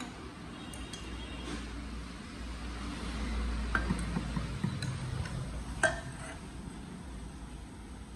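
Metal spoon scooping cooked rice out of a ceramic rice pot into a small porcelain bowl, with scraping and a few light clinks of metal on ceramic; the sharpest clink comes just under six seconds in.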